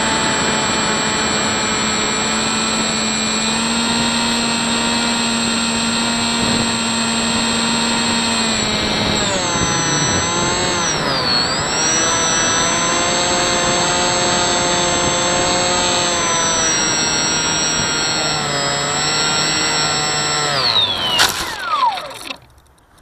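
Hubsan Spyhawk's electric motor and propeller whining, heard from the onboard camera. The pitch holds steady, then dips and rises several times with throttle changes. Near the end there is a quick spin-down with a brief clatter as the plane comes down in the grass, and the motor stops.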